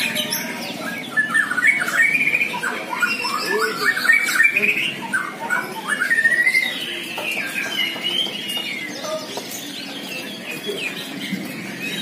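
Many caged songbirds singing at once, the dense overlapping chorus of a songbird contest: quick whistled trills, chirps and squawks, busiest in the first half and thinning a little toward the end.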